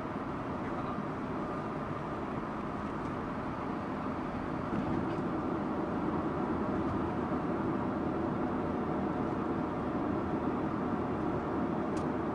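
Subaru Impreza Sports Wagon (GG2) on the move: steady engine and tyre noise that gets louder about four and a half seconds in.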